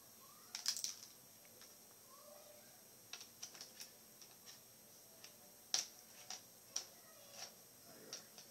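Scattered small clicks and taps of a screwdriver and the laptop's plastic and metal screen-assembly parts being handled during disassembly, coming in short clusters with gaps between.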